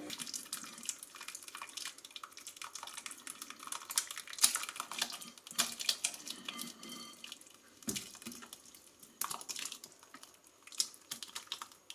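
Thick beef stew with chunks of meat, carrots and mushrooms being poured out of a metal mixing bowl into a glass dish: wet sloshing and plopping, with many scattered small clicks and knocks.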